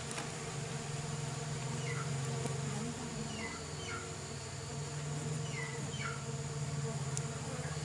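A swarm of Fusco stingless bees (Tetragonula fuscobalteata) buzzing steadily around their opened hive box: an agitated colony defending the nest while the brood is being lifted out.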